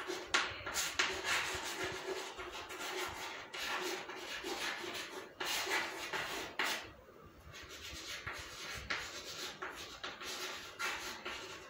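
Chalk writing on a blackboard: a run of short scratching strokes, with a brief pause about seven seconds in.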